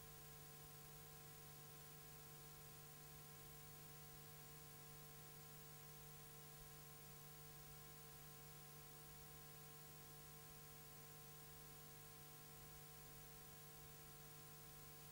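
Near silence: only a faint, steady electrical hum with light hiss.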